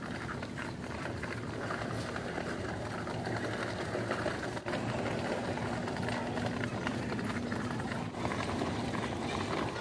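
Heavily loaded metal platform cart rolling over a concrete store floor, its wheels rattling steadily.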